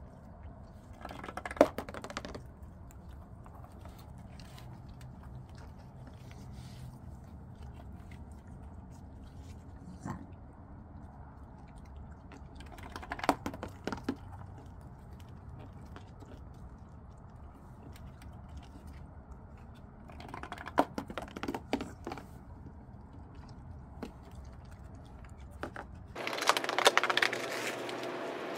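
Raccoons crunching and chewing cookies in short bursts of crisp crunches every few seconds, over a steady low hum. Near the end the hum drops away and a louder, denser run of crunching begins.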